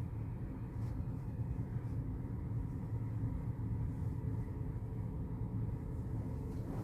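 Empty freight flatcars rolling past on the rails, their steel wheels giving a steady low rumble.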